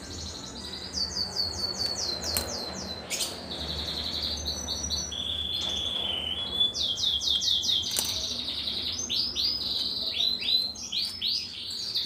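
Canaries chirping and trilling: quick runs of repeated high sweeping notes mixed with held whistled tones, going on throughout.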